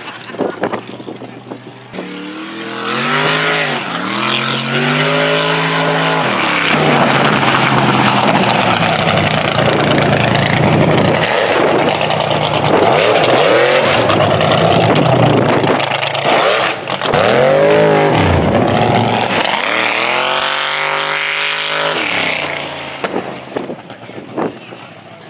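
Mega truck's engine revving hard, its pitch rising and falling several times as the truck pulls across the field, loud through most of the stretch and fading away near the end as it drives off.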